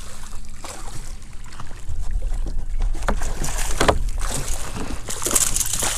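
Wind rumbling on the microphone while a hooked speckled trout splashes at the surface, with a few sharp knocks from the landing net and gear being handled on the skiff about halfway through.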